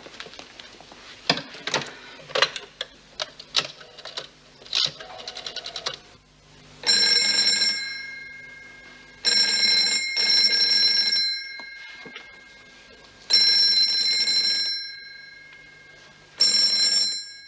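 Landline telephone bell ringing four times. Each ring is a bright metallic burst that fades out, with pauses of a second or two between them. Before the ringing starts, about seven seconds in, there are a few short knocks and clicks.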